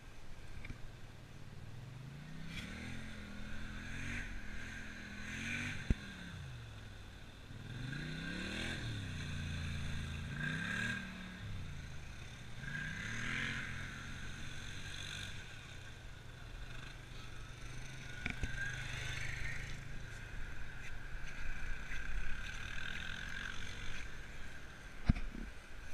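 Quad bike (ATV) engine heard from on board, its pitch climbing and dropping again and again as the throttle is opened and eased along a rough trail. Two sharp knocks stand out, one about six seconds in and one near the end.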